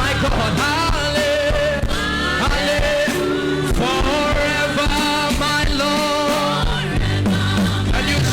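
Live gospel worship music: voices singing long, wavering held notes over a band accompaniment with a steady bass.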